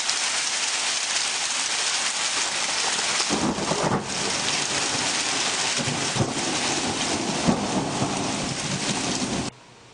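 Heavy rain pouring down and running off hard surfaces, a dense steady hiss. From about three seconds in a low rumble joins it, and the sound cuts off abruptly near the end.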